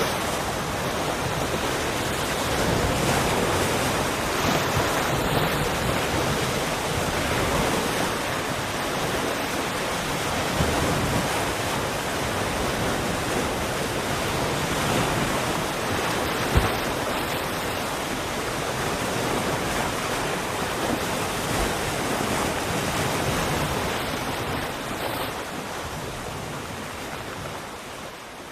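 Sea surf: a steady rush of waves with gentle swells in loudness, fading out near the end.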